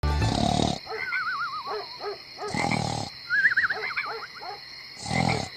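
Cartoon snoring sound effect: three loud rasping snores about two and a half seconds apart, each followed by a warbling whistle on the out-breath, over a faint steady high whine.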